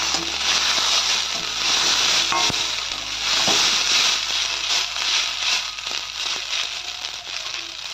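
Boiled fusilli pasta sizzling in hot oil in a kadai as it is lightly fried, stirred with a perforated metal spatula that clicks and scrapes against the pan a few times.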